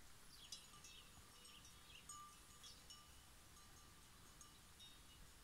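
Faint cowbells on grazing cattle clinking now and then, each a short ringing tone, with a few faint high chirps among them.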